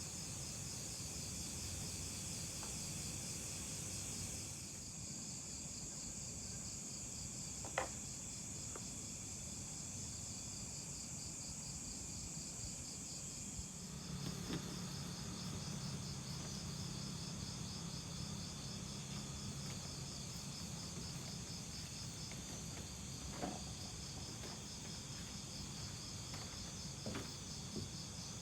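Night insects, crickets among them, chirring steadily in several overlapping high, pulsing trills, with a few faint clicks scattered through.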